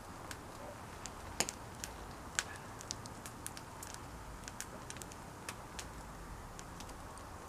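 Faint, irregular sharp crackles and pops, a couple each second, over a low steady background rumble.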